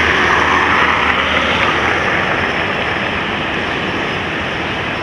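Steady noise of dense car traffic, the sound of many engines and tyres blending into one even rush.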